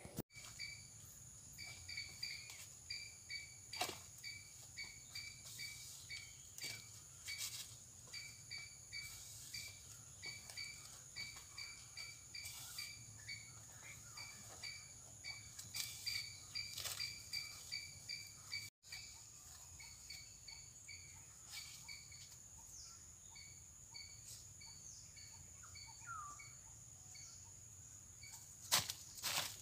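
Forest ambience: a bird repeats a short, high chirp about three times a second, over a steady high-pitched insect drone, with a few faint clicks and rustles.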